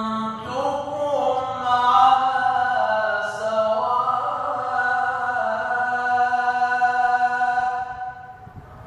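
A male qari chanting a Quran recitation solo, drawing out long held notes with slow melodic turns and glides. The phrase ends about eight seconds in.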